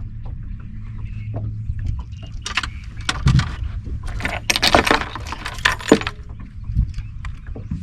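A run of light clicks and a metallic jangle over a steady low hum. The jangling is busiest about four to six seconds in.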